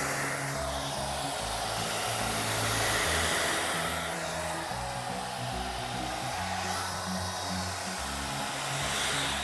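Agaro volumizer hot-air brush dryer running, blowing a steady rush of air that swells slightly a couple of times. Steady background music notes sit underneath.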